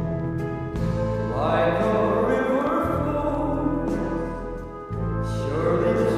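An old vocal record with orchestral backing, sung lines swelling up about a second in and again near the end, made to sound as if playing in another room, with faint vinyl crackle.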